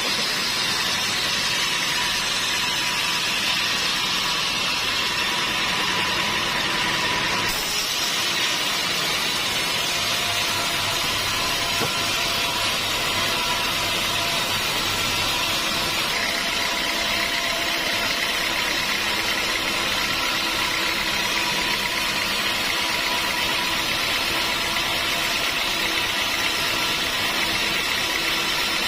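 Sawmill machinery running steadily: a continuous engine-like drone with a hissing high noise on top. The sound changes abruptly about seven seconds in and again near the middle.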